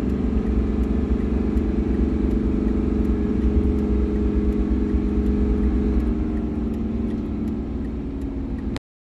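Cab interior sound of a 2002 Chevrolet Silverado's 6.6-litre Duramax LB7 turbodiesel V8 running at road speed under load, easing off slightly near the end before it cuts off suddenly. The truck is short of power under load because actual fuel rail pressure sits far below what the computer commands (code P1093).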